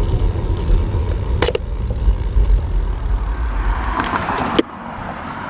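Wind rumbling on the microphone of a moving bicycle, with road noise. There is a sharp click about a second and a half in, and another near the end, where the rumble suddenly drops away.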